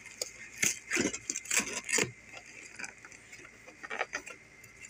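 Hands handling a cardboard box: irregular rustling, scraping and light tapping, busiest in the first two seconds, then a few fainter scrapes.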